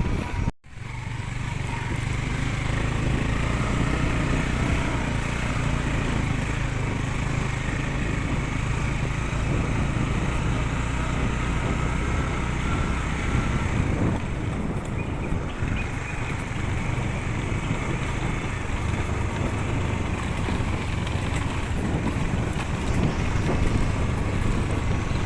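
A small engine running steadily at an even speed, a constant low hum with no change in pitch.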